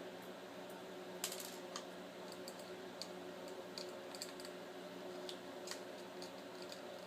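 Small screwdriver backing out the tiny screws that hold a laptop hard drive in its bracket: faint, irregular metal clicks and ticks, with a small cluster a little over a second in.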